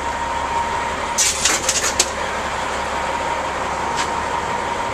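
A vehicle engine idling steadily nearby, with a faint steady whine. A quick run of sharp clicks and rattles comes about a second in, and a single click near the end.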